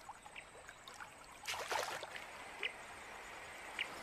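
Running river water trickling, with a brief louder rush of water about a second and a half in, and faint short high chirps about once a second.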